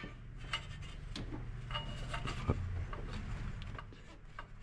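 Scattered light clicks and rubbing of hands and small metal parts as manifold flange washers and nuts are fitted by hand on an MGB engine that is not running, with a short knock about two and a half seconds in.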